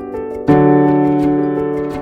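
Background music: soft piano chords held and decaying, a new chord struck about half a second in, over a faint ticking beat.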